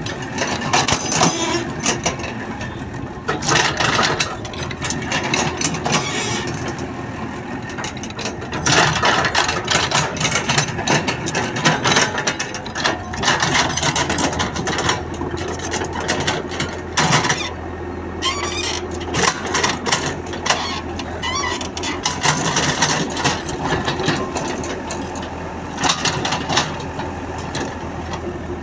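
Komatsu mini excavator at work. Its diesel engine runs steadily under hydraulic load, with frequent clanks and scraping from the bucket working loose soil.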